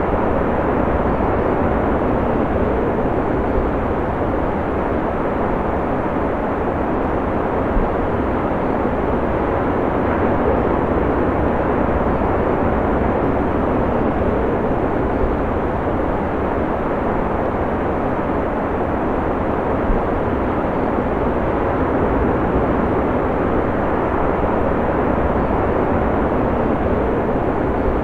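Ocean surf: a steady, dense rush of breaking waves, with no single wave crash standing out.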